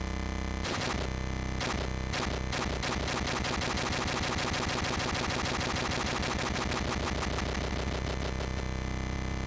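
MMXX T-APE synthesizer playing a looped bytebeat grain, a harsh digital sound that repeats over and over. The repeats come about once a second at first, crowd into a fast stutter from a few seconds in as the grain length is changed, and spread out again near the end.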